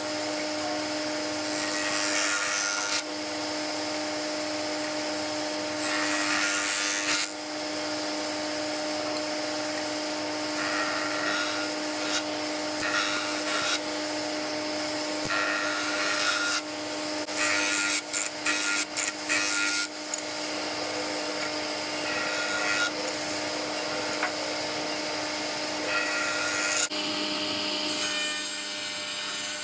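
Jointer running with a steady motor hum while scrap boards are fed across its cutterhead in repeated passes, each pass a loud rush of cutting noise lasting a second or two. In the last few seconds the sound changes to a table saw running.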